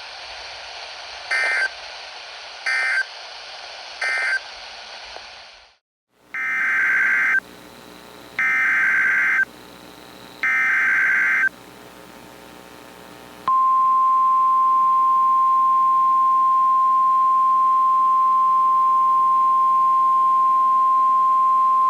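NOAA Weather Radio Emergency Alert System signal. It starts with three short digital end-of-message squawks closing the previous warning. After a brief silence come three longer digital header squawks announcing a new severe thunderstorm warning, then the steady single-pitch 1050 Hz weather radio alarm tone, held for about eight seconds.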